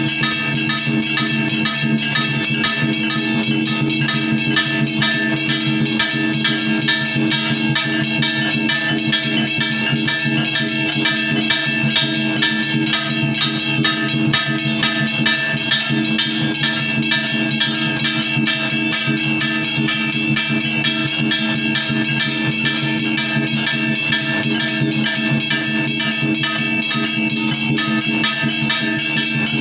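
Temple bell and drum played together for aarti: a continuous run of rapid, even strikes over the bell's sustained ringing.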